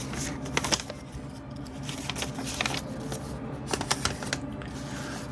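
Scattered light clicks and rustling from hands handling small objects, over a faint steady low hum.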